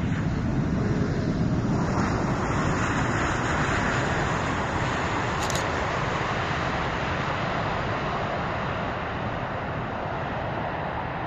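Distant roar of the Emirates Airbus A380-861's four Engine Alliance GP7200 turbofans as the jet rolls out along the runway after landing. The roar swells about two seconds in and then slowly fades.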